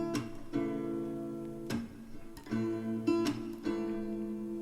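Background music: an acoustic guitar strumming sustained chords, with a few separate strums across the stretch and no vocals.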